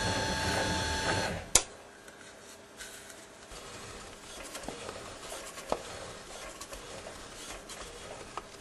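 A steady machine-like whir with several fixed tones that stops about a second in, followed by one sharp click, then faint scattered light clicks and taps.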